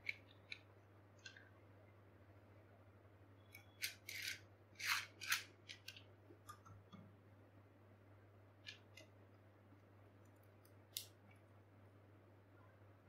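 Faint, scattered short clicks and scrapes, with a cluster of louder ones about four to five and a half seconds in and single ones near the start and about nine and eleven seconds in, over a low steady hum.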